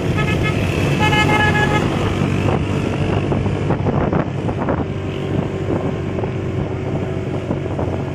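Motorcycle engine running with road and wind noise while riding. A vehicle horn toots about a second in and lasts under a second.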